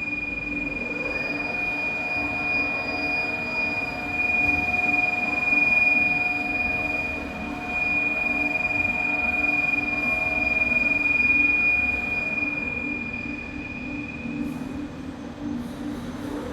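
Large CNC boring machine running, its drives giving a steady high whine over a pulsing low hum; a second, lower tone joins about a second and a half in and drops away about twelve seconds in, and the high whine fades out near the end.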